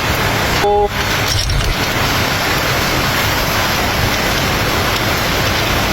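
Steady, loud hissing noise, briefly broken by a short dip about a second in.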